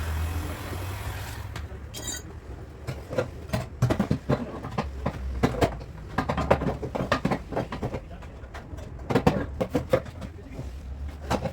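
Irregular hammer taps and knocks on a car's sheet-metal body panel during dent repair, with a brief metallic ring about two seconds in. A steady low hum dies away in the first second and a half.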